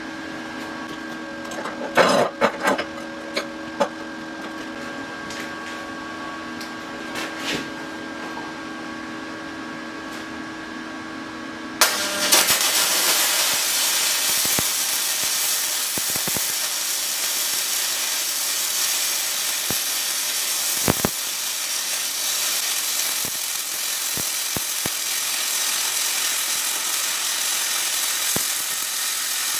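Small 200-amp flux-core welder humming steadily, with a few clicks and knocks. About twelve seconds in, the arc strikes and a dense, steady crackling carries on as a bead is laid.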